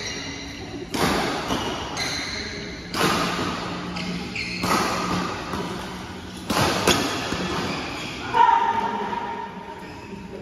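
Badminton rally: sharp racket-on-shuttlecock hits, about seven at irregular intervals, echoing in a large hall. Brief squeaks of shoes on the court mat come between the hits, with a longer one near the end.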